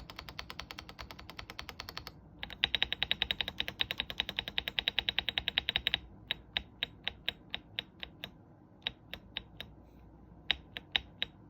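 DAREU A87 Pro mechanical keyboard with stock Golden Violet switches being typed on. There is a fast, even run of keystrokes, about ten a second, that grows louder after a brief pause. About six seconds in it gives way to slower single key presses with gaps between them.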